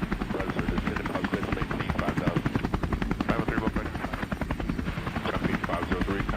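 Helicopter running in flight, a steady fast chopping of the rotor over the engine noise.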